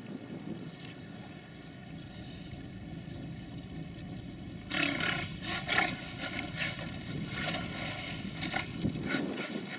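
Steady low hum of a boat engine. About five seconds in, giant otters break into a run of loud, harsh alarm calls in quick succession, directed at a jaguar on the bank.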